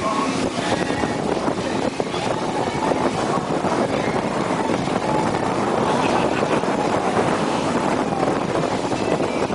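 Motorboat under way: steady engine and hull noise with wind buffeting the microphone.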